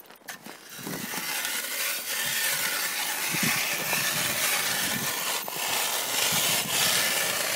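Ice auger boring a hole through lake ice: a steady rasping noise of the cutting blades shaving ice, starting about a second in and holding level.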